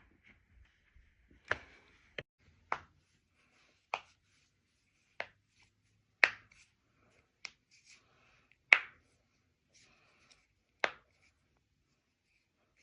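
About nine sharp, short cracks, irregularly spaced roughly a second apart, the loudest a little past halfway: joints cracking during chiropractic adjustments.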